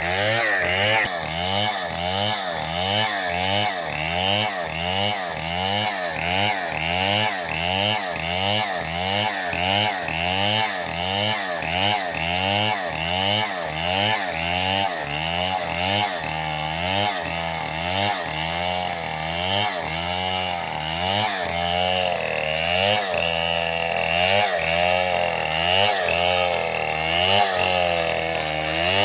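Chainsaw running through wood, its engine pitch rising and falling about twice a second, then in slower, wider swings in the second half as the load on the chain changes.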